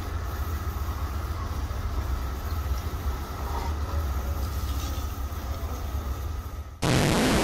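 Steady hiss of a garden hose nozzle spraying a jet of water, over a low rumble. A loud, brief burst of static-like noise cuts in near the end.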